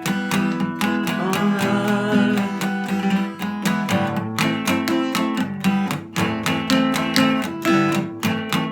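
Acoustic guitar strummed in a steady rhythm, with a wavering lead melody over it from about a second in to about three seconds in.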